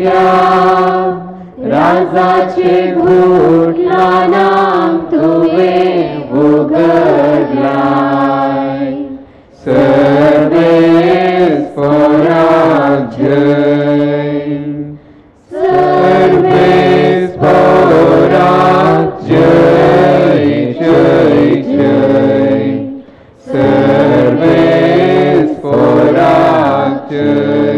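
A church choir singing a hymn in Konkani in long sustained phrases, with brief breaths between lines about a third of the way in, about halfway and again later on.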